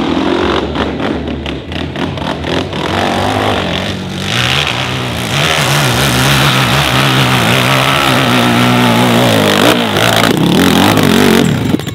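Hill-climb motorcycle engine revving hard as the bike climbs a steep dirt slope, its pitch rising and falling with the throttle. There is a crackling in the first few seconds, and the sound cuts off abruptly just before the end.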